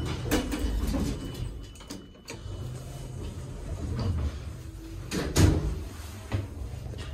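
Dover elevator doors sliding open, rattling and knocking, with a heavy thump about five seconds in.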